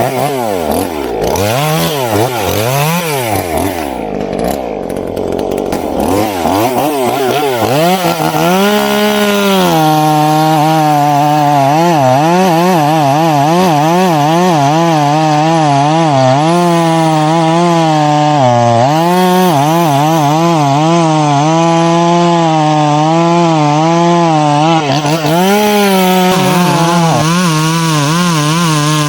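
Chainsaw revving up and down for the first several seconds, then held at full throttle cutting through a coconut palm trunk, its pitch dipping and recovering again and again as the chain bogs under load.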